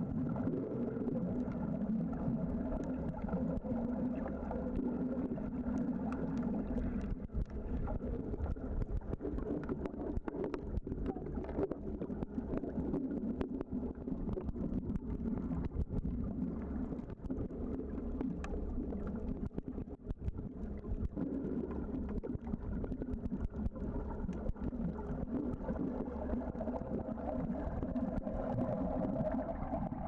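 Underwater sound picked up by a snorkeler's camera: a steady motor-like drone carried through the water, with many scattered faint clicks and crackles.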